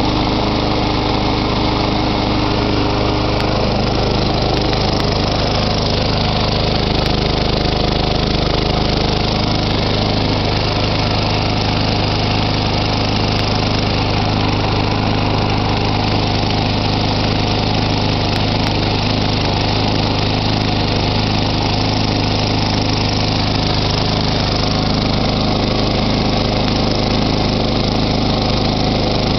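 Craftsman push mower's 6.75 hp Tecumseh single-cylinder engine running steadily, still cold after an extreme cold start in about 20-degree weather with thick oil.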